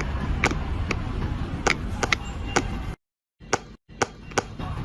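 Silicone pop-it fidget toy bubbles being pressed through one after another, each giving a sharp pop, about two a second, with a brief break partway through.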